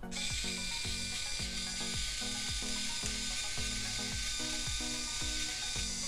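ION automatic ceramic crimping iron running with its motor turning the crimping plates along a clamped section of hair, making a steady mechanical clicking about two to three times a second over a thin whine.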